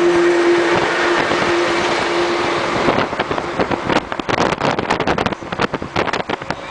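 Road traffic noise from a moving vehicle: a steady rush with a held engine hum beside a flatbed truck for about three seconds, then turning choppy and uneven.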